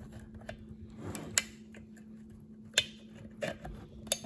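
Needle-nose pliers clicking and scraping against a chainsaw's crankshaft as they work a melted plastic oiler worm gear off it: light ticks with three sharp clicks about a second and a half apart. A faint steady hum runs underneath.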